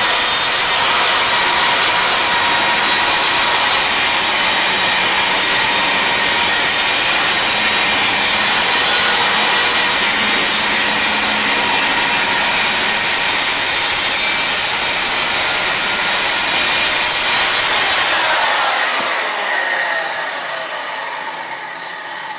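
A Bosch PKS 54 CE corded circular saw cuts a PVC-coated panel, running loud and steady. About eighteen seconds in it is switched off, and the blade winds down with a falling whine.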